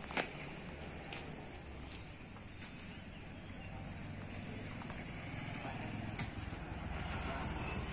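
Low rumble of road traffic that grows louder over the last few seconds as a motorcycle comes along the road. There is a sharp knock right at the start and another about six seconds in.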